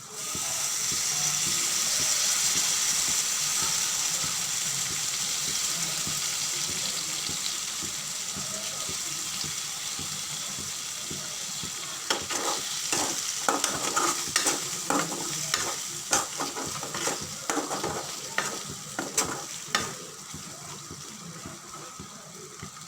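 Chicken pieces frying in oil in a pan, sizzling loudly as squeezed lemon juice hits the hot pan, then slowly dying down. From about twelve seconds in, a spatula stirring the chicken clicks and scrapes against the pan.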